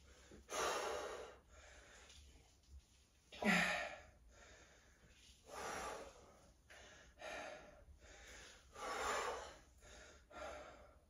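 A person breathing hard from exertion, with heavy breaths in and out about every one to two seconds. About three and a half seconds in comes one louder breath with a short voiced grunt.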